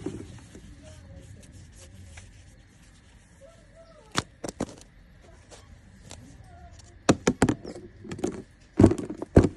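Short, sharp clicks and knocks of a plastic surprise egg being handled and snapped open: a few light clicks about four seconds in, then quick runs of louder ones around seven seconds and again near the end.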